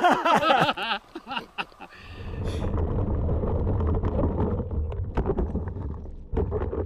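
Mountain bike rolling fast over rocky singletrack: a steady low rumble of tyres and wind on the mic, with small rattles. About six seconds in the rumble breaks off in a short clatter of knocks as the bike snags a tree and the rider flips over it in a crash.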